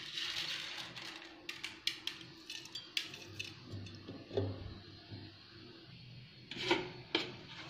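Dry wheat grains rustling as they are poured and sprinkled into a ceramic jar, then scattered light clicks and taps as the grains are spread and pressed down by hand, with a few louder taps near the end.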